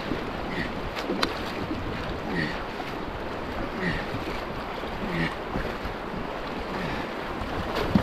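Fast river water rushing around a canoe, with paddle strokes dipping and pulling about every one to one and a half seconds and wind buffeting the microphone. A sharp click about a second in.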